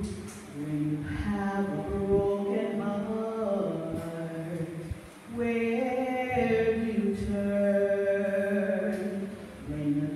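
A woman singing a slow meditation song solo, holding long notes, with short breaks between phrases about half a second in and about five seconds in.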